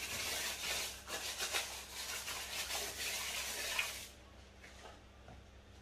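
A buttered paper wrapper being rubbed around the inside of a metal bundt pan to grease it: a dry, scratchy rubbing in many quick strokes that stops about four seconds in.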